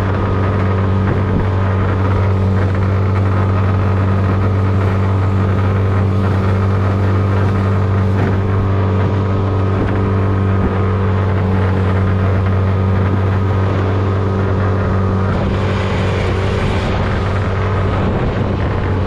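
Small outboard motor driving a jon boat at steady throttle, a constant loud drone, with water and wind noise swelling about 15 seconds in.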